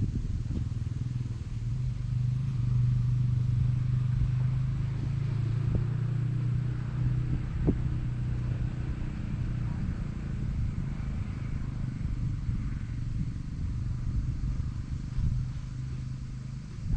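A boat motor running at a steady speed, a constant low hum with a few small knocks over it.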